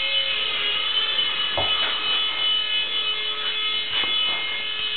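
Picco Z micro RC helicopter in flight, its small electric rotor motors giving a steady high whine.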